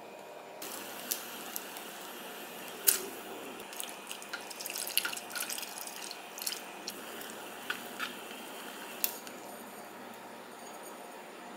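Udon noodles being stirred and lifted with wooden chopsticks in a pot of water: small splashes and drips, with sharp clicks of the chopsticks against the pot, over a steady hiss. The loudest click comes about three seconds in, and there is a busy run of clicks and splashes in the middle.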